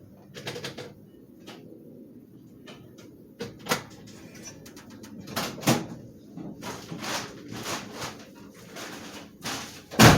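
Scattered clicks, knocks and handling noises, with one loud thump about ten seconds in.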